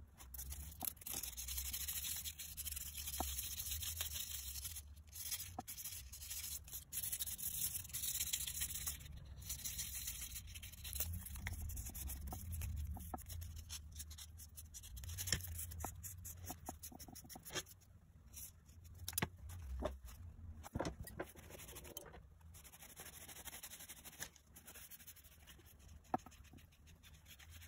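Brass screwdriver shafts being hand-sanded and rubbed with a cloth: scratchy back-and-forth rubbing, densest in the first half, with occasional light clicks of the metal parts.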